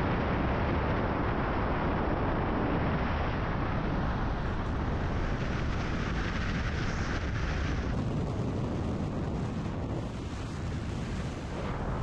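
Steady rushing wind and road noise from a moving car, with the wind buffeting the microphone in a low rumble; the hiss eases a little about eight seconds in.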